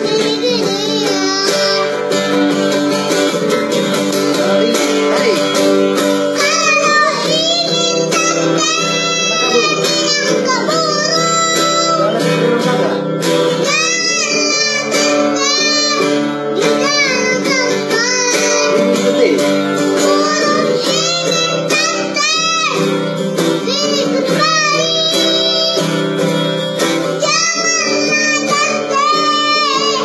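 A young boy singing a song with long, bending notes, accompanied by an acoustic guitar.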